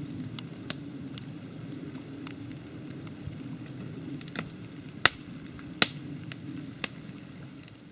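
Scattered raindrops ticking sharply and irregularly close by, about a dozen hits, over a steady low rumble.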